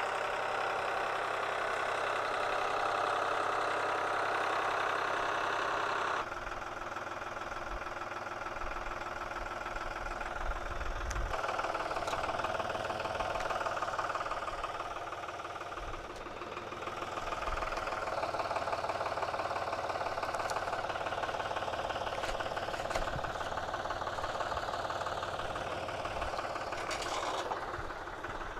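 New Holland tractor's diesel engine running steadily while its front loader and log grapple handle a log. The engine sound drops about a fifth of the way through and picks up again about 11 seconds in, with a few short knocks later on.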